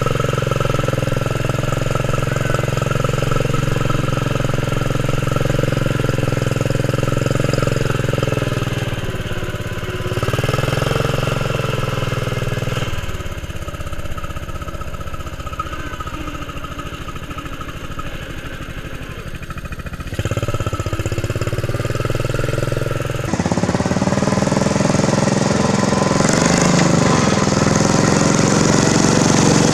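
Craftsman LT1000 lawn tractor engine running steadily under load as it drives through sand and shallow river water. Its sound drops for several seconds midway, then changes abruptly about 23 seconds in to the mower heard from the shore, approaching through the shallows.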